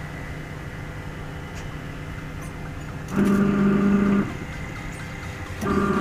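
Sharp single-tub washing machine's wash motor humming in short runs, on test after being rewired to a manual timer. It runs for about a second, stops, and starts again near the end: the on-off rhythm of the pulsator agitating.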